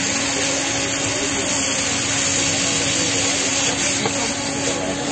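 Steady rushing noise of a street-stall gas burner under a large pan, with momos in sauce sizzling in the pan.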